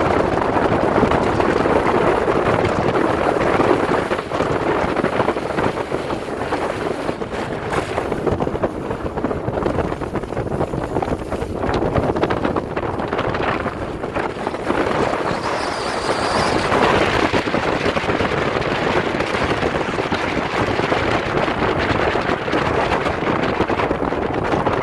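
Wind buffeting the microphone over a bass boat's outboard motor running at speed, the hull moving through choppy water with rushing spray.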